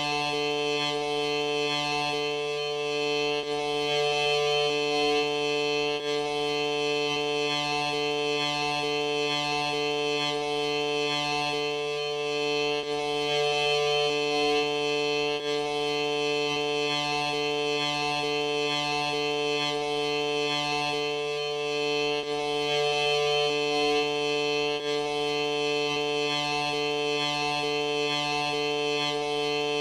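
A single sneeze slowed down so far that it becomes a steady drone: several held tones sounding together like a bowed or reed drone, with a faint wavering hiss on top and no break or attack.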